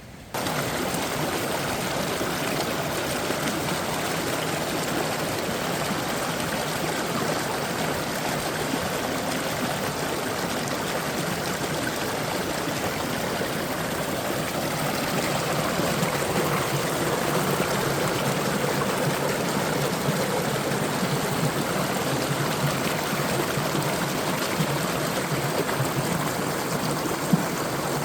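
Mountain stream flowing in a steady rush, cutting in suddenly at the very start.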